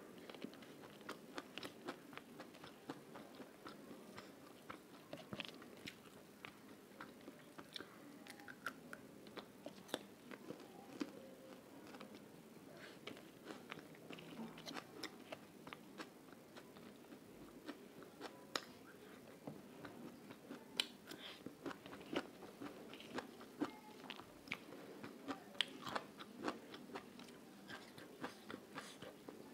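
Close-miked chewing of rice and vegetables eaten by hand, with many sharp, irregular mouth clicks and small crunches.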